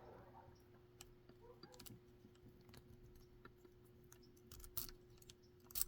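Faint clicks and taps of a plastic zip tie being worked into a lock to shim it, with a couple of louder clicks near the end, over a faint steady hum.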